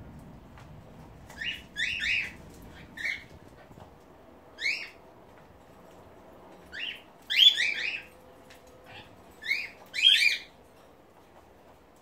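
Cockatiels calling: short, sharp, upward-sweeping calls, some single and some in quick clusters of two or three, about a dozen in all, the loudest around the middle and near the end.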